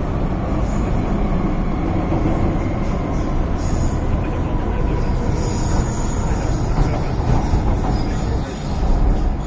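MTR M-Train electric multiple unit heard from inside the car while running: a steady rumble of wheels and running gear. A thin, high-pitched squeal comes and goes through the second half.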